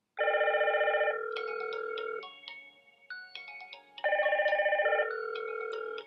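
Hikvision video intercom indoor monitor ringing for an incoming call from the door station. It plays an electronic ringtone: a trilled chord of about a second, then held tones and a run of short notes, starting over about four seconds later.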